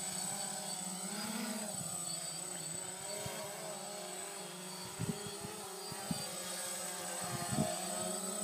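Small quadcopter drone's propellers buzzing steadily in flight, the pitch wavering slightly as the motors speed up and slow down. A few short knocks come in over the second half.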